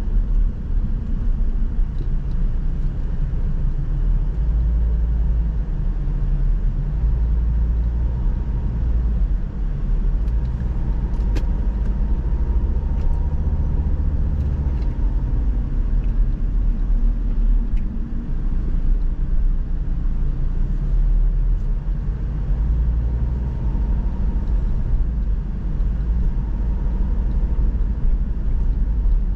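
A car driving along a road: a steady low rumble of engine and tyres that swells and eases slightly as it goes.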